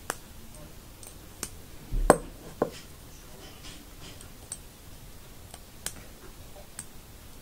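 Scattered light clicks and taps of a plastic loom hook and rubber loom bands against the tines of metal forks as the bands are lifted over them, with a louder knock about two seconds in.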